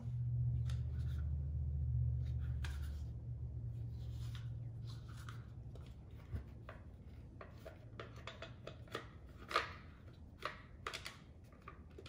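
Scattered clicks and scrapes of hard plastic on metal as a hand tool is worked against a Comma 3 held in a strong CNC-aluminium magnetic mount, trying to pry them apart. Under them runs a low hum that fades away over the first half.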